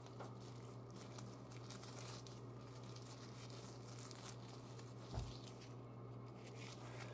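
Faint crinkling and rustling of a knitted copper scouring pad being stretched and pulled apart by hand, over a steady low hum, with a soft thump about five seconds in.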